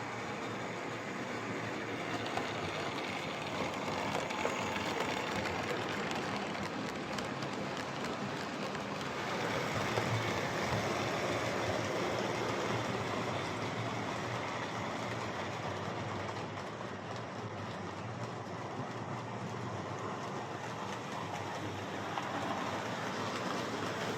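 Tri-ang Hornby R850 Flying Scotsman OO gauge model locomotive running on track after an overhaul: a steady motor whirr and wheel rumble, smooth but with a slight grinding note. It grows louder and softer a few times as it travels around the track.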